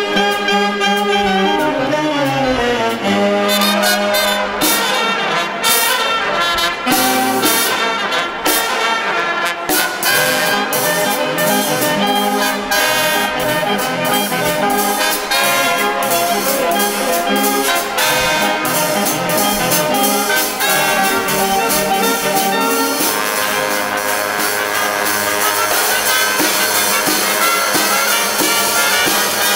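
A small wind band of alto, tenor and baritone saxophones, clarinet and trumpet plays a tune together, with snare drum and cymbal keeping the beat. The drum strikes are thickest for a few seconds early in the piece.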